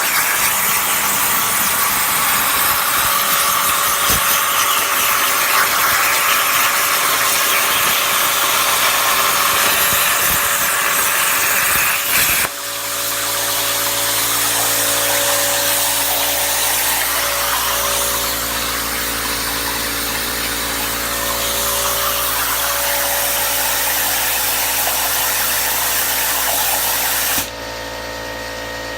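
Plasma torch on a Langmuir Crossfire CNC table cutting steel, a loud steady hiss. About halfway through the arc cuts off abruptly, leaving a softer hiss over a steady low hum and tones, and the hiss drops away near the end.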